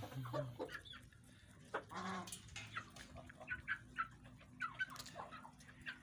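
Hens and roosters clucking, with short high calls scattered through and one longer call about two seconds in.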